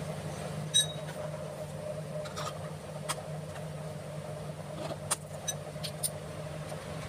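A few short, sharp metallic clicks and clinks as motorcycle clutch parts (plates and housing) are handled and fitted onto the clutch shaft, over a steady low hum.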